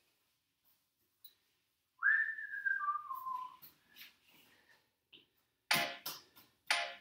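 A person whistling a short falling phrase of a few notes, about two seconds in, for about a second and a half. Near the end come three short, sharp puffs of sound.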